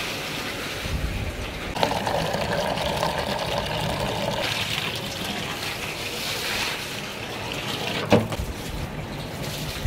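Water running and splashing onto a concrete floor as it is wetted down to cool it. Two sharp knocks come through, one at about two seconds and a louder one about eight seconds in.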